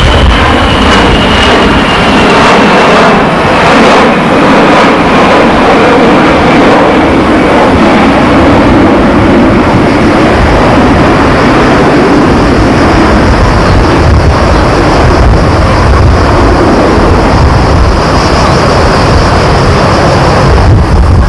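Jet airliner, a Boeing 737-200, passing low overhead on landing approach with its gear down. Its engines make a loud, steady noise, with a whine that slowly falls in pitch over the first several seconds as it goes by.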